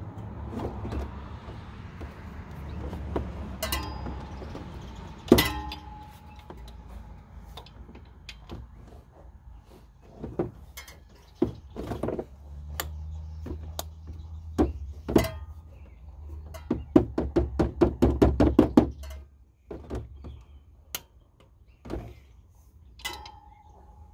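Hand tools working on a bolt in a pickup's engine bay: scattered metallic clinks and knocks, a couple of them ringing briefly, with a quick run of clicks about three-quarters of the way through.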